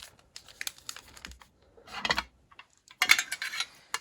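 Handling of foil booster packs and trading-card packaging: irregular short crinkles and light taps, busiest about three seconds in.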